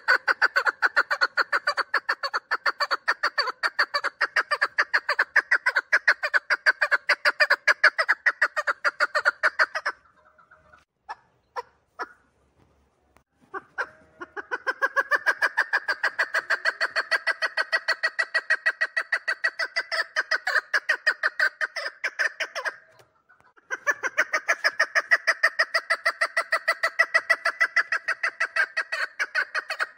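A three-year-old chukar partridge giving its call: long runs of fast, evenly repeated chuk notes. The calling stops for about four seconds some ten seconds in, with only a few single clicks in the gap, then resumes. It pauses again briefly later on.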